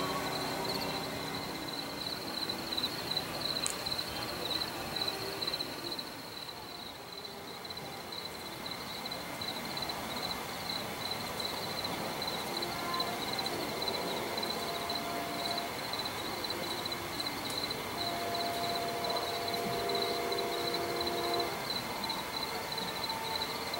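Steady high-pitched chirring of crickets. Faint sustained low tones come in during the second half, clearest a few seconds before the end.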